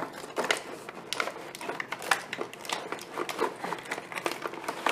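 Cardboard toy box with a clear plastic window crinkling and rustling as it is handled, in irregular crackles.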